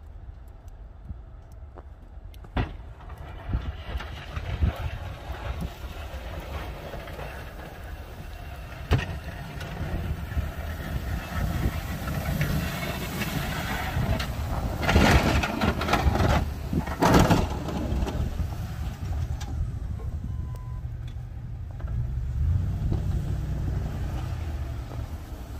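Pickup truck with a Boss V-plow pushing snow: the engine runs steadily while the blade scrapes over the lot, with a couple of loud knocks midway. The engine gets louder near the end as the truck comes close.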